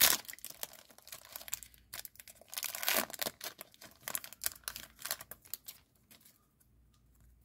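Trading card pack wrapper crinkling and tearing as it is ripped open, a dense run of crackles loudest about three seconds in.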